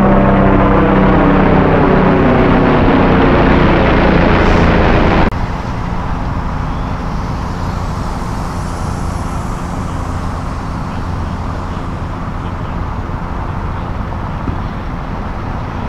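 Helicopter flying overhead, its rotor and engine note sliding down in pitch as it passes. About five seconds in the sound cuts abruptly to a quieter, steady rumble of engines and road traffic.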